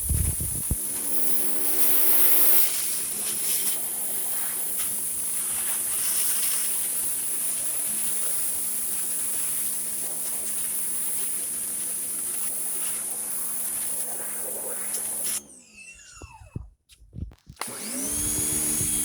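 Powermate 1800 PSI electric pressure washer running steadily: a motor hum with a strong hiss of water spray. About fifteen seconds in it cuts off suddenly and winds down. Near the end the motor starts up again.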